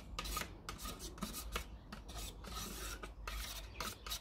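Metal palette knife scraping leftover acrylic paint out of a cup, a run of short, irregular scrapes.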